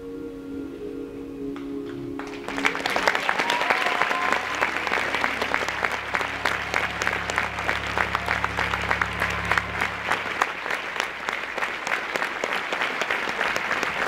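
A held chord from the show's band fades away, then about two and a half seconds in, a large theatre audience breaks into applause that carries on strongly. A low held bass note sounds under the clapping for several seconds.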